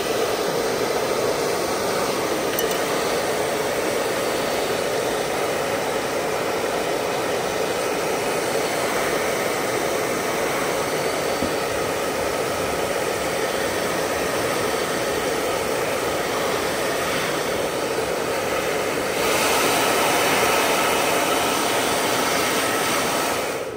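Hot air gun blowing steadily, a rushing air noise that gets a little louder about 19 seconds in and cuts off at the end. It is the kind of heat used to soften a phone display's adhesive.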